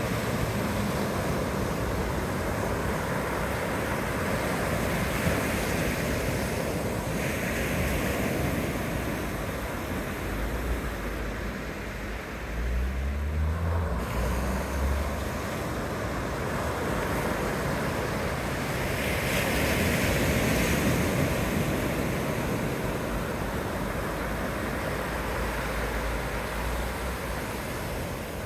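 Ocean surf: small waves breaking and washing up a sandy beach, a steady rush that swells twice. Wind rumbles on the microphone in the middle.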